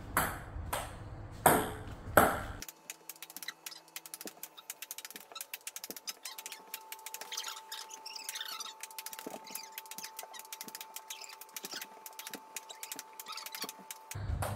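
Ping pong ball clicking sharply off a table tennis paddle and the wooden floorboards, four clicks in the first two seconds or so. After that only faint rapid ticking and a thin steady hum.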